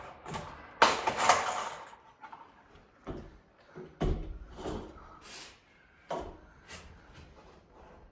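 Sheet metal being knocked and shifted into place: a loud bang about a second in, then scattered irregular knocks and clatters.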